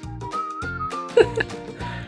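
Background music: a light melody over a steady bass beat.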